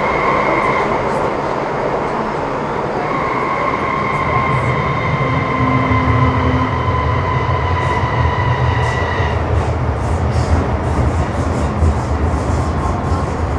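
MTR Metro Cammell M-Train's GEC GTO chopper traction equipment whines with a steady tone while the train runs between stations; the whine cuts off about nine seconds in. Under it, the low rumble of wheels on rail builds from about four seconds, with light clicks near the end.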